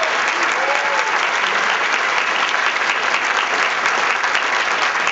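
A large audience applauding, with dense, steady clapping, and a few voices shouting or cheering near the start.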